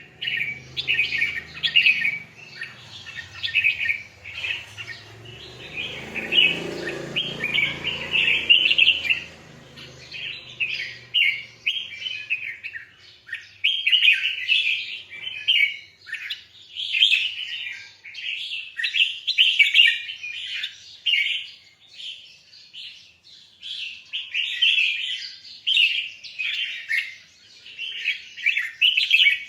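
Red-whiskered bulbul singing, with repeated bright chirping phrases in bursts and short pauses between them. A low muffled noise sits under the song for the first dozen seconds or so.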